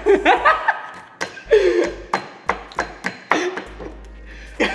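Several young men laughing and chuckling in short bursts, with sharp clicks and taps scattered in between.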